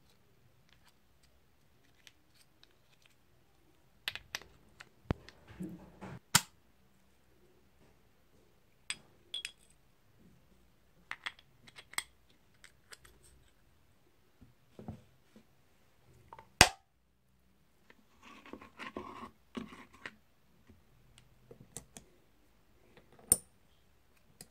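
Small metal parts of an Ingersoll Rand air impact wrench's air motor clicking and tapping as they are handled and fitted together by hand: rotor, vanes and bearing end plate. Scattered sharp clicks with pauses between them, and a short stretch of rustling handling noise about three-quarters of the way through.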